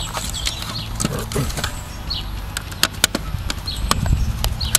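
Screwdriver clicking and tapping against the plastic and metal of a DVD drive's laser pickup mechanism as it is taken apart: a string of sharp, irregular clicks over a low rumble.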